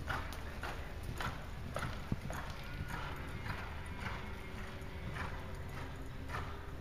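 Hoofbeats of a paint reining horse loping on an indoor arena's sand footing, coming evenly about twice a second in the rhythm of the lope.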